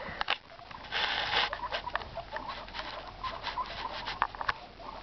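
Guinea pigs scurrying about on a carpeted floor. A burst of rustling comes about a second in, followed by a string of quick ticks and small scrabbling sounds.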